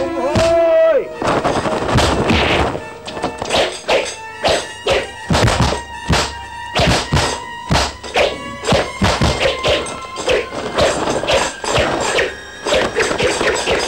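Percussive action music with many sharp whacks and thuds coming in quick, irregular succession.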